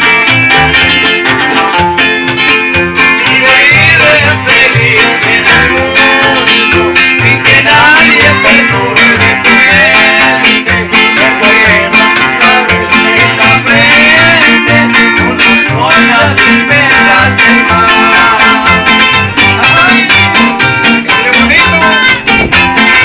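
Live trio of two acoustic guitars and an upright bass playing a lively song, the bass plucking a steady beat under the strummed and picked guitars.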